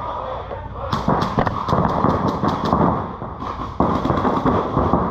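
Paintball marker firing a rapid string of about eight shots, roughly five a second, starting about a second in, over a steady noisy background.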